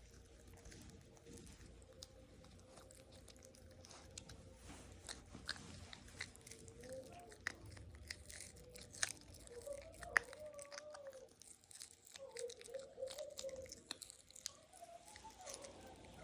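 A pet crunching and chewing a hard treat: irregular sharp bites and crunches, closely miked.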